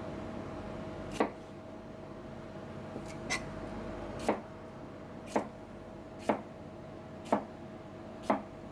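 Kitchen knife slicing through a cucumber and striking a plastic cutting board: a sharp chop about once a second, seven in all, one of them softer. A steady hum runs underneath.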